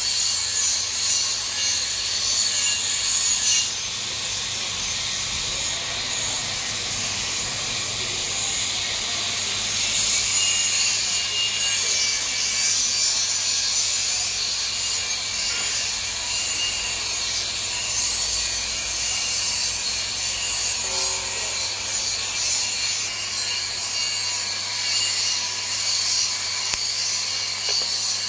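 TIG (argon) welding arc burning steadily on a steel pipe: a constant hiss with a low electrical hum underneath.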